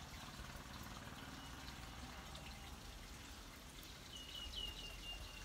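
Faint trickling of a stream, with scattered small clicks. From about four seconds in, a thin high steady tone comes in.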